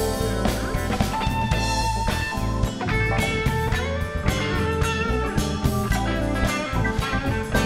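Live blues band playing an instrumental passage: an electric guitar plays lead over bass guitar and a drum kit.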